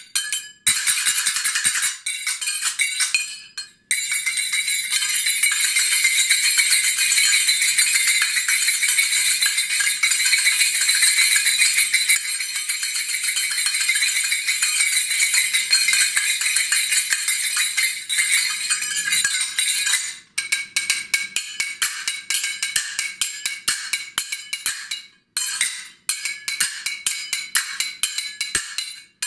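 Egyptian sagat (finger cymbals) played with both hands: a fast unbroken run of bright metallic strikes for most of the time, breaking about two-thirds through into separate rhythmic strikes with brief pauses.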